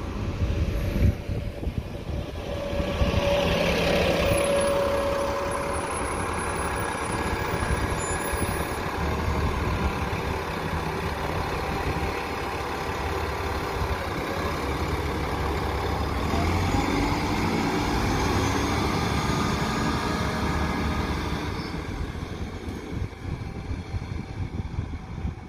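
City transit bus pulling away from a stop and driving off: its engine runs up under load with a hiss as it starts off, the pitch rising again a little past halfway as it picks up speed, then fading as it goes away down the road.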